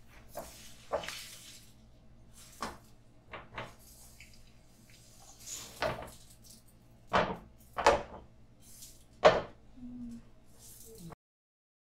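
Sharp knocks and clunks of a metal frying pan and utensil being handled on a gas stove grate, about a dozen separate hits with the three loudest in the second half, over a faint steady hum. The sound cuts off suddenly near the end.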